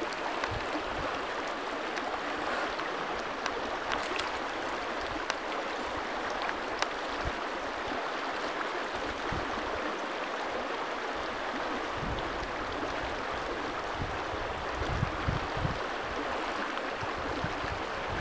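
Steady rushing of a shallow river flowing over rocks. A few faint clicks and, in the second half, some low thumps sound over it.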